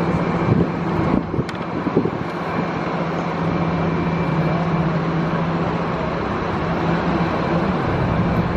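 Road vehicle engine humming steadily at a low, even pitch over general traffic noise, with a few light knocks in the first two seconds.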